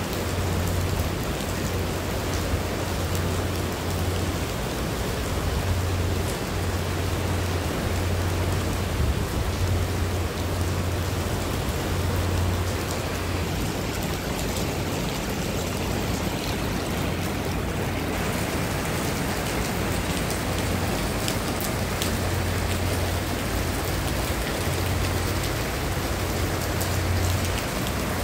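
Heavy rain falling steadily on wet paving and open water, a continuous hiss, with a low fluttering rumble underneath.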